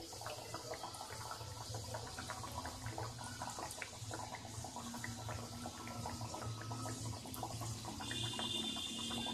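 A maida nimki deep-frying in hot oil in a steel kadai: steady sizzling with many small crackles and pops as it fries to golden.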